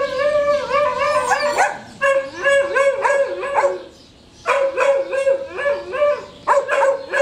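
Dog howling in long, wavering phrases, with a short break about four seconds in.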